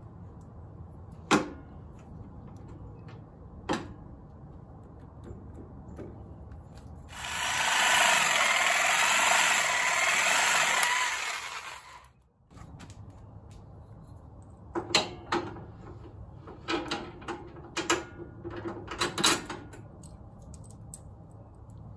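A few sharp knocks, then a corded reciprocating saw cutting for about four seconds, which is the loudest sound here. It is likely cutting scrap aluminum for brackets. Near the end comes a quick string of metallic clicks and clanks as a steel shaft and its bearing blocks are handled and fitted.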